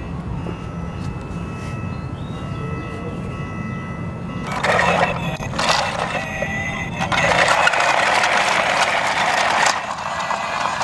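Battery-powered toy train running, its small motor giving a low rumble with a faint steady whine. About halfway through a loud rasping, clicking noise sets in, in two long stretches.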